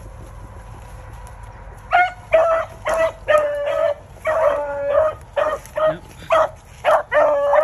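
A beagle-type rabbit hound bawling on a rabbit's track: a string of about a dozen loud barks at a steady pitch, starting about two seconds in, some short chops and some drawn out.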